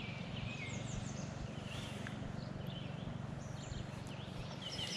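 Steady rush of river water, with small birds chirping faintly now and then.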